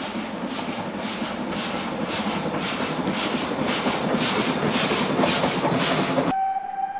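Southern Railway Schools class three-cylinder steam locomotive No. 926 Repton working past, with a steady exhaust beat of about two chuffs a second growing louder as it nears. Near the end the sound cuts off suddenly, leaving a single steady whistle note.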